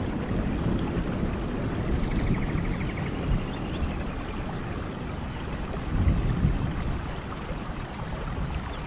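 Steady rain with low rumbling swells, and animal calls over it: a short run of three or four quick high chirps repeating about every four seconds, and a fainter rapid trill.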